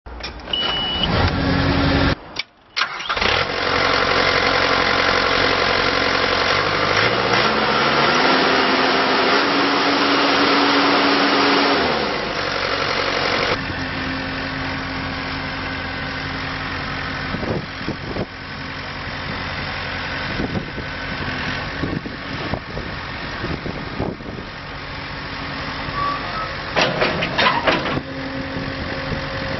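Takeuchi TL230 compact track loader's Kubota diesel engine starting after a short beep and running. About seven seconds in it revs up, holds high for a few seconds, then drops back to idle. Scattered knocks and clatter follow while it idles.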